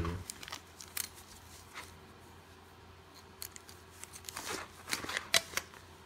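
Handling noise as a lavalier microphone cable is stretched out and measured on a table: scattered small clicks and rustles, sparse in the middle and busier near the end.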